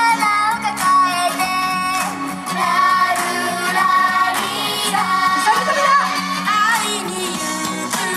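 A pop song playing, with a high sung vocal melody over steady instrumental backing.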